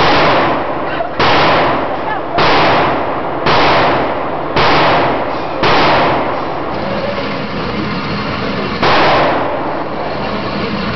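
Glock 23 .40 S&W pistol fired seven times in an indoor range: six shots about a second apart, then a pause of about three seconds and one more shot. Each report rings on in the concrete room.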